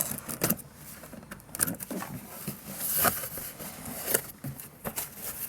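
Irregular knocks, taps and rustles of a cardboard box and its packaging being handled and opened, with a louder sliding rustle about three seconds in.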